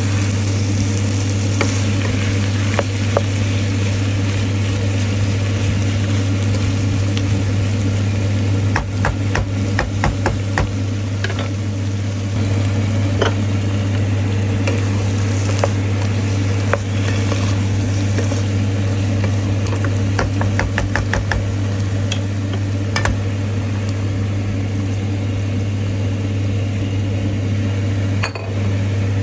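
Stir-fry sizzling in a pan, with a spatula clicking and scraping against the pan in clusters, over a steady low hum.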